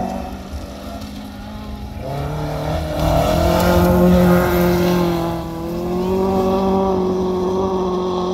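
Rally car driving at speed on a gravel stage, its engine note held steady, loudest about three to five seconds in, with a hiss of tyres on gravel.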